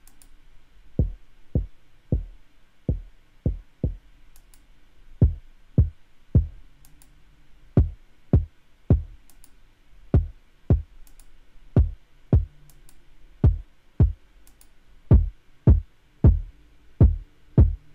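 Processed hip-hop kick drum playing on its own in a syncopated pattern: about two dozen punchy hits, each dropping fast in pitch to a deep low end. It runs through a mix chain of EQ, parallel compression and bus saturation.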